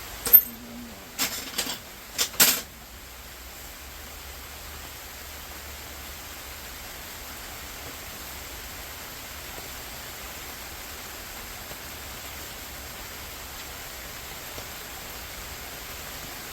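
Small metal pieces clinking and clicking against each other, about five sharp clinks in the first two and a half seconds, then only a steady faint hiss.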